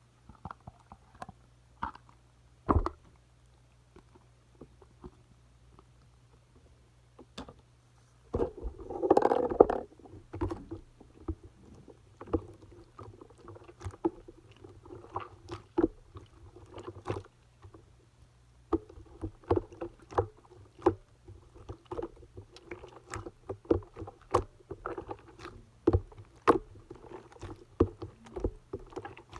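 Slime with clay mixed in, squeezed and kneaded by hand: sticky squishes and small popping clicks. It is sparse at first, then a louder burst of squelching comes about eight to ten seconds in, followed by steady irregular clicking and squishing.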